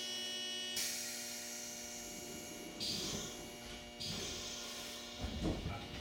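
Steady electrical hum of an electric train standing at a station, with sudden bursts of hiss about a second in and again around three and four seconds, and a few low thumps near the end.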